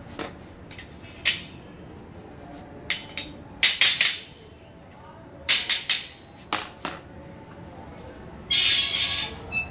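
Slotted steel angle pieces of a rack frame clinking and knocking against each other and the floor as they are fitted together, in a string of sharp clanks. Near the end comes a longer scrape of metal sliding over the floor.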